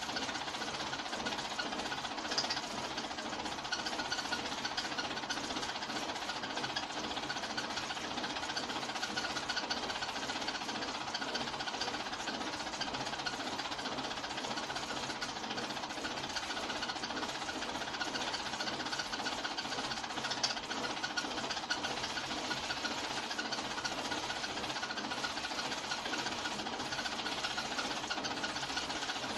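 Hand-cranked 1908 35mm film projector running, its mechanism giving a steady fast rattle as the film is cranked through, with a sharper click about two seconds in and another about twenty seconds in.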